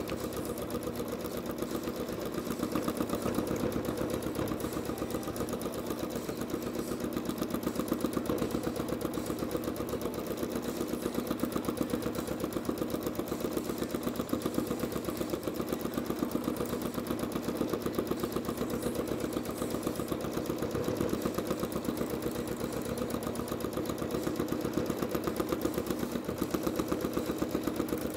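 Janome Skyline S9 sewing machine running steadily at speed during free-motion stitching: a fast, even rattle of needle strokes with no pauses.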